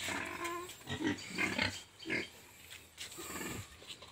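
Young pigs grunting in a pen: a run of short, irregular calls.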